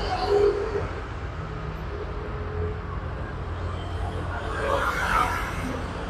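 Steady low rumble of road traffic, swelling briefly with a louder hiss about five seconds in.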